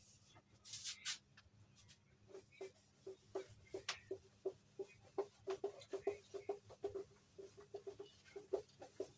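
A cloth duster rubbed back and forth over a whiteboard to erase it, squeaking against the board in short, irregular chirps at one pitch, several a second, after a couple of brief scraping swipes at the start.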